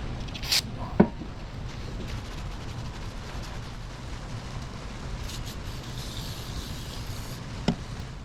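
Aerosol can of dye penetrant sprayed onto a cast-iron engine block to check for cracks: a short hiss about half a second in and a longer, fainter spray later on, with a couple of sharp clicks, over a steady low hum.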